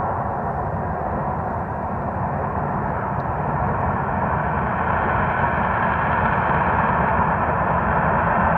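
Jet aircraft engine noise: a steady, loud rushing sound that grows gradually louder in the second half.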